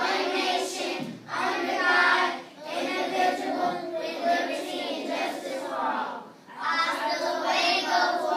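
A group of young children singing together in unison, phrases of held notes with short breaks between them.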